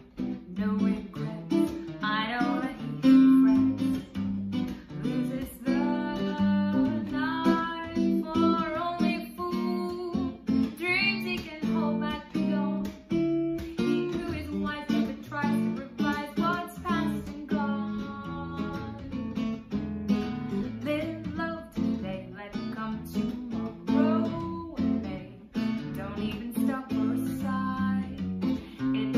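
A woman singing a jazz tune to hollow-body archtop guitar accompaniment, the guitar plucking chords and single notes under her voice.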